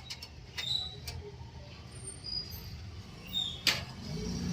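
Light clicks and knocks of computer hardware being handled during PC assembly, with one sharp click about three and a half seconds in, over a low steady hum.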